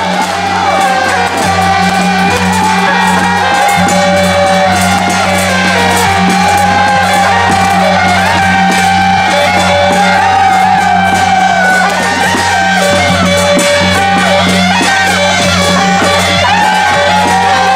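Music with singing and instruments, over a steady low hum, with many short crackles in the high end throughout.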